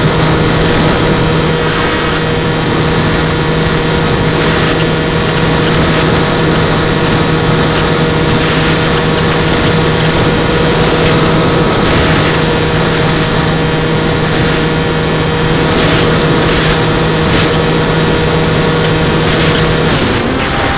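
Brushless electric motor of an RC plane (NTM 4248, 650 kv) spinning an 11x8 propeller in flight, a steady hum with rushing air over it. Shortly before the end the hum stops and a different, lower-level note takes over as the throttle changes.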